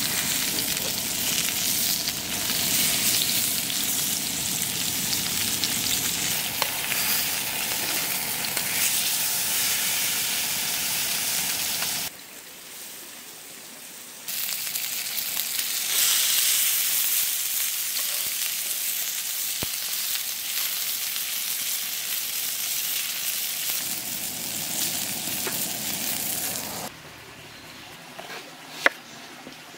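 Mackerel fish frying in hot oil in a pan: a steady sizzle, broken off for about two seconds partway through. Near the end the sizzle stops and a knife cuts a shallot on a wooden board with one sharp chop.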